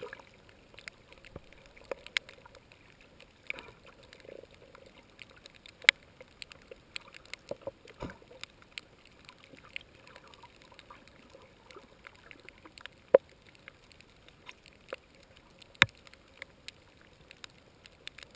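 Underwater ambience on a coral reef through a GoPro's waterproof housing: a quiet, muffled wash scattered with sharp clicks and crackles, a few of them much louder than the rest.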